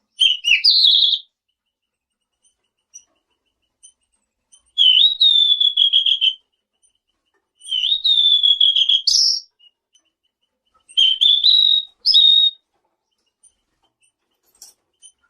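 Selendang biru (tledekan biru) singing: four loud whistled song phrases a few seconds apart, each a rising note that is then held level, with a twittering edge.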